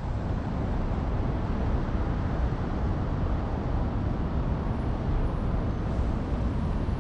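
Steady city traffic noise from buses and cars on a busy street, heavy in low rumble.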